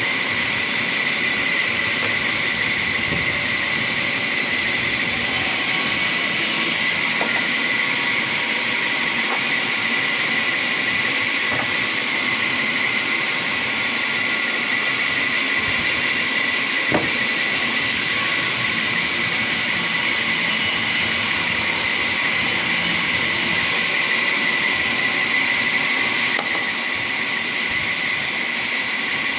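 Sawmill saw running: a steady, high whine over a loud hiss, with a single sharp click about halfway through and a slight drop in level near the end.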